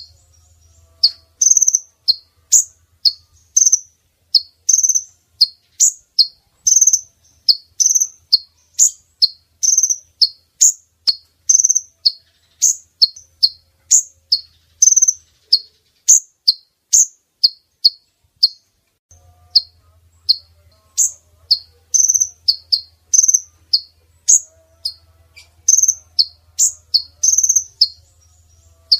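Female kolibri ninja (konin) sunbird calling: a steady, unbroken series of short, high chirps, roughly two a second. It is a lure call used to draw in males.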